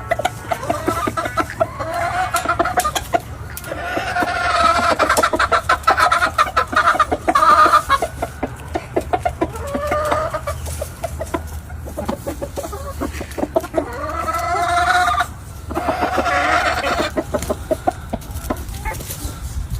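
Gamefowl roosters crowing one after another, several long wavering crows in a row, with chickens clucking between them.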